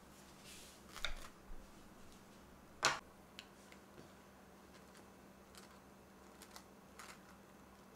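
Faint, scattered clicks and taps of a metal butter knife against a ceramic bowl and a slice of toast on a wooden board as a cream cheese spread is scooped and spread, with one sharper tap about three seconds in.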